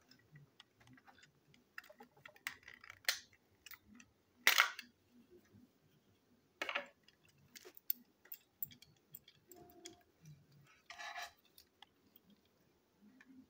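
Plastic toy train engine being handled and turned over in the hands: scattered light clicks and taps of its plastic body and wheels, with a few louder knocks.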